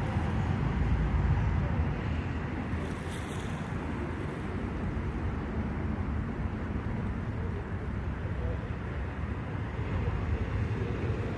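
Steady outdoor background noise: a low rumble of wind buffeting the phone's microphone, with distant traffic.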